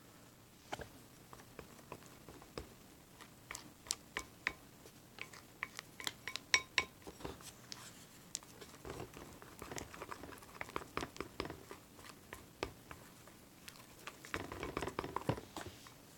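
Fluffy slime mix of glue, baking soda and shaving cream being stirred with a popsicle stick: irregular soft squishes and clicks, a few sharp ringing taps against the container around the middle, and a denser run of squelching near the end.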